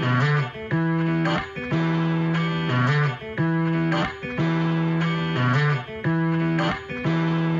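Background music: a guitar riff of held notes repeating a little more than once a second.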